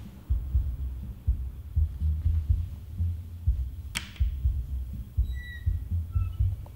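Low, muffled, pulsing thumps go on throughout. About four seconds in there is one sharp click, followed by a few short, high chirping tones.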